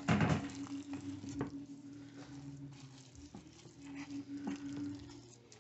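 Silicone spatula stirring and folding thick brownie batter with shredded zucchini, walnuts and chocolate chips in a glass batter bowl: wet squelching and scraping with scattered clicks of the spatula against the glass, loudest right at the start. A faint low hum comes and goes underneath.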